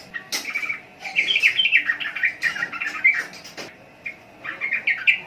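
Yellow-vented bulbul (trucukan) singing in runs of quick chirping notes: a short run at the start, a long run through the middle and another short one near the end.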